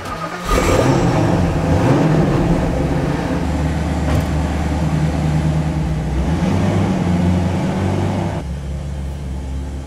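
SSC Ultimate Aero's twin-turbo V8 starting up about half a second in, then idling with throttle blips that make the revs rise and fall.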